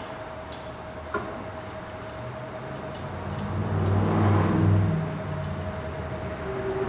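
Hand ratchet clicking in short, irregular runs as screws are turned out on a long extension. A low hum swells up and fades away in the middle.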